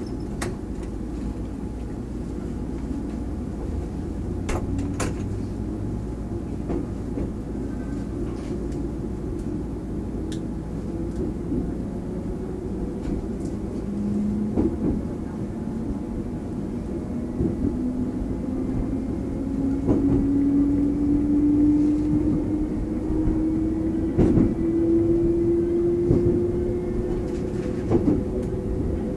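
Taiwan Railway EMU400 electric multiple unit running, heard from on board: a steady low rumble, with a motor whine that climbs slowly and steadily in pitch from about halfway as the train picks up speed. Sharp clicks from the wheels come every few seconds.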